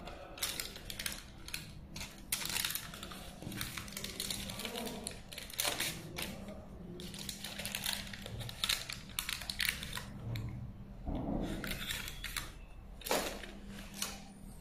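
Aluminium foil tape and its paper backing crinkling and rustling in the hands as the tape is wrapped around a fibre optic cable and the backing is peeled off, in irregular bursts.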